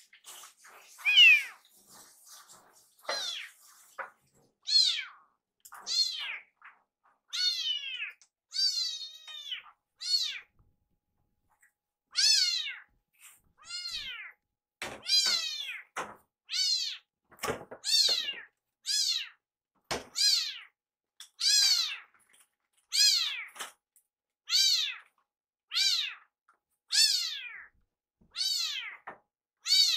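Young tabby kitten meowing over and over, about one high-pitched, falling meow a second, sounding like "iru, iru". It is crying loudly to hurry its food while the meal is being made. A few short knocks come among the meows.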